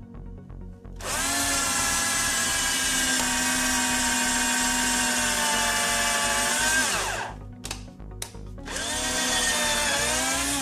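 Cordless drill with a new motor matched to its battery's voltage, spinning up with a whine and boring into a wooden block for about six seconds, winding down, then a second shorter run near the end. The motor runs unstrained, with an even, uniform sound.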